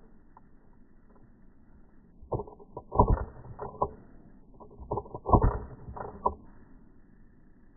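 Two clusters of sharp clicks and knocks, each lasting about a second and a half, the second following about a second after the first ends.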